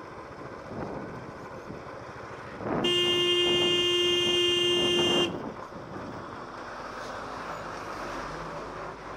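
A vehicle horn sounds one steady, unbroken note for about two and a half seconds, starting about three seconds in, over the steady wind and road noise of a motorcycle ride.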